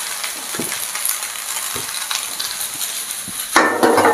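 Spaghetti sizzling in oil in a nonstick frying pan over a gas flame, the pasta-cooking water just added hissing as it boils off. About three and a half seconds in comes a brief, louder clatter.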